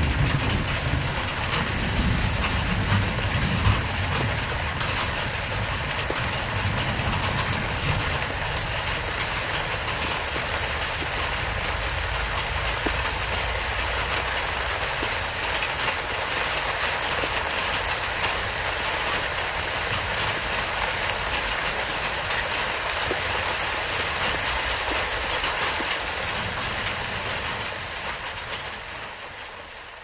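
Steady rain falling on foliage, an even hiss. A low rumble sits underneath for the first several seconds, and the sound fades out near the end.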